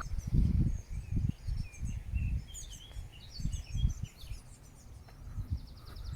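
Small birds singing, with scattered chirps in the middle and a quick trill near the end, over uneven low rumbles and thumps.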